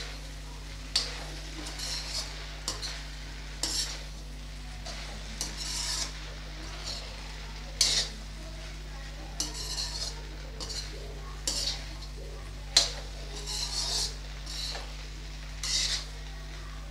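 Steel slotted spoon scraping and clinking against a steel kadhai in irregular strokes, stirring chopped okra to mix in the spices.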